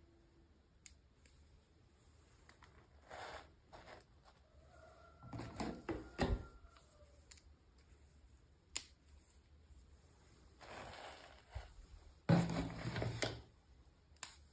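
Intermittent rustling, scraping and sharp clicks from hands unboxing packaging and small miniature toys. The loudest bursts come about halfway through and again near the end.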